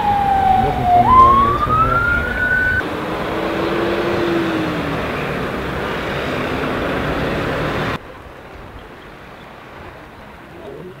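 Emergency vehicle siren, one tone gliding down and then sweeping up in pitch, cut off abruptly about three seconds in. Then steady road and outdoor noise, dropping abruptly to a much quieter background about eight seconds in.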